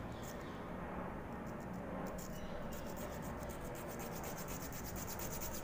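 Small hand hacksaw sawing through a plastic lure body: a faint, rasping back-and-forth. The strokes become quick and regular about two seconds in.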